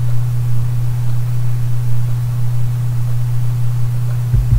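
Steady low electrical hum with a faint hiss underneath, with a brief low thump near the end.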